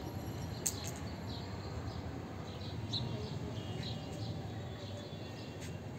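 A small bird chirping short high notes, repeating roughly once a second, over steady low background noise. A single sharp click sounds under a second in.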